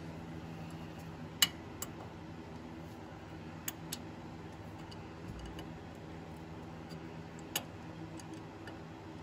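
An adjustable wrench clicking against a plug in a 1972 John Deere 110 garden tractor's transaxle housing: a few sharp metal clicks at uneven intervals, the loudest about one and a half seconds in, over a steady low hum.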